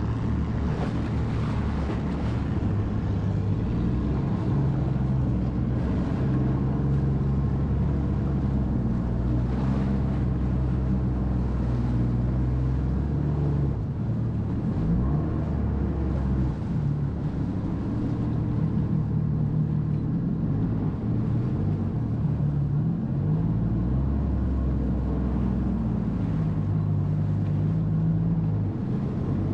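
Jet ski engine running steadily, its pitch shifting up and down a little several times as the throttle changes, with wind and water noise over it.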